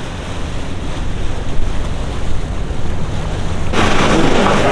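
Wind rumbling on the microphone over the wash of harbour water. Near the end it cuts suddenly to the louder, busier hubbub of an indoor market.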